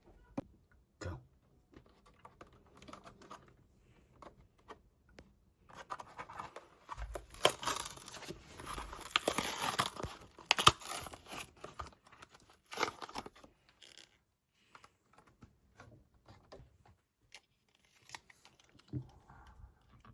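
A Hot Wheels Premium die-cast car package being torn open by hand: cardboard and plastic blister tearing and crinkling, with scattered clicks and taps. The tearing is loudest in a stretch starting about six seconds in and lasting some five seconds.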